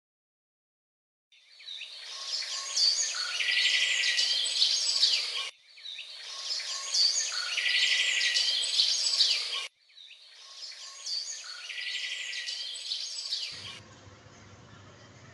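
Birds chirping, with a fast trill, in a short recorded passage played three times over with abrupt cuts between repeats. It starts after about a second of silence and gives way to a faint low hum near the end.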